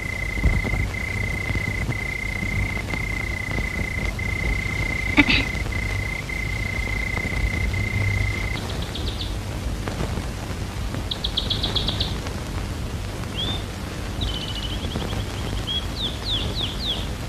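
Crickets giving a steady high drone with brief regular gaps, which stops about halfway through. Then birds chirp in short rapid trills and single chirps. A low steady hiss and hum from the old soundtrack runs underneath.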